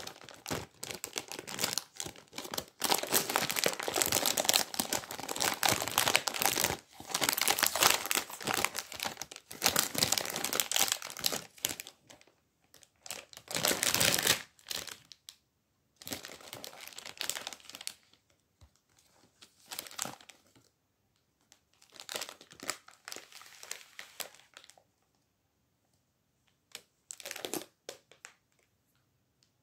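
Foil-lined plastic cake wrapper and inner foil being handled and unfolded, crinkling and rustling. The crinkling is dense and continuous for about the first twelve seconds, with a loud burst a couple of seconds later, then comes in shorter bursts with quiet gaps between them.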